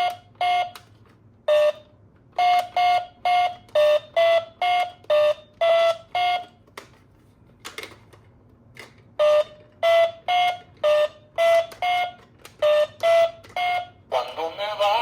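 Electronic sound toy sounding a two-tone beeping alarm: short beeps alternate between two close pitches about two or three times a second. They come in two runs with a pause of a couple of seconds between them.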